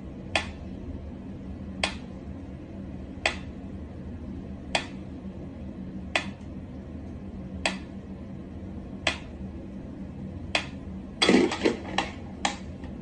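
Mechanical pendulum metronome ticking slowly and evenly, one sharp tick about every second and a half, over a steady low hum. Near the end a quick flurry of several knocks.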